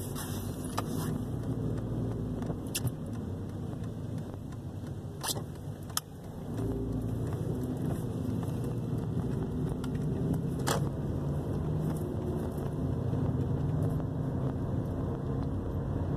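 Car cabin noise while driving: a steady low rumble of engine and tyres that grows louder with a low drone about six and a half seconds in, with a few sharp clicks and knocks.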